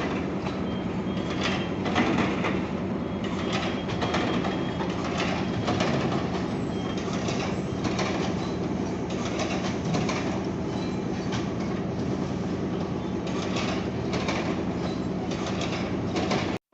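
Cement-loading machinery running: a steady mechanical drone with constant rattling and clatter. It cuts off suddenly just before the end.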